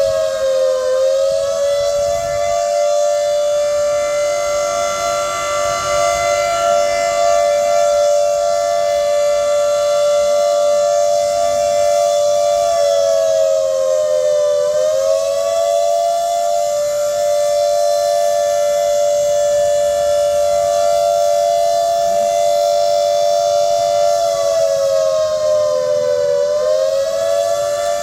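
Civil defence emergency siren sounding an alert: a loud, steady two-note wail whose pitch dips briefly and climbs back about every 13 seconds.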